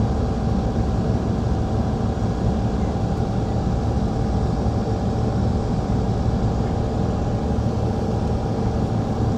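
Steady drone of a passenger ferry under way at speed: engine rumble with a steady whine over it, and water rushing past the hull.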